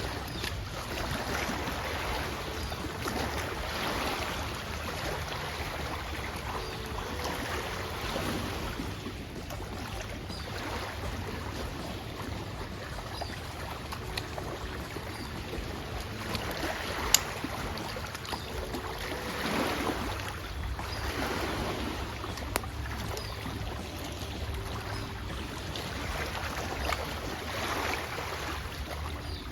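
Small waves lapping against the shore in soft washes every couple of seconds, over a low steady wind rumble on the microphone, with one sharp click about 17 seconds in.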